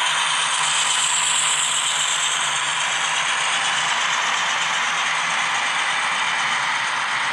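Model freight train rolling past: a steady rattle of its metal wheels on the track and the locomotives' drive mechanisms as the autorack cars go by.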